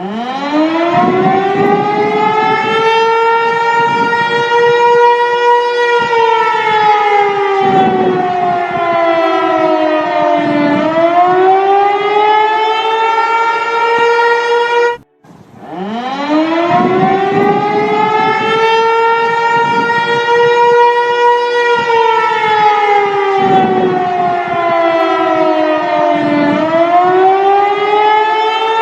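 Outdoor civil-defense warning siren wailing. Its pitch winds up, holds, slides down and climbs again. It cuts out for a moment about halfway through, then starts the same cycle over.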